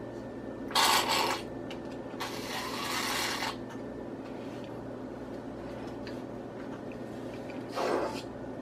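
Plastic marinade injector drawing from a bowl of liquid, giving hissy sucking sounds twice in the first few seconds and once more near the end. The needle is picking up little liquid and pulling in mostly air. A steady low hum runs underneath.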